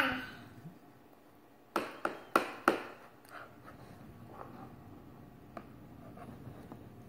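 A metal spoon knocking against a plastic cereal bowl: four quick clicks, about three a second, near the middle, then faint scraping in the bowl.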